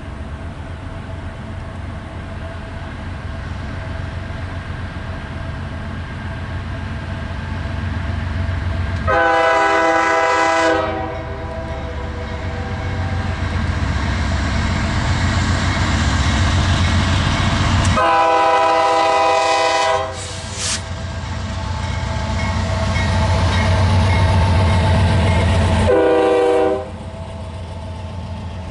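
Diesel freight locomotive's air horn sounding several blasts: a long one about nine seconds in, another long one around eighteen seconds followed by a quick tap, and a shorter one near the end. Under it the locomotive's engine rumbles, growing louder as the train approaches.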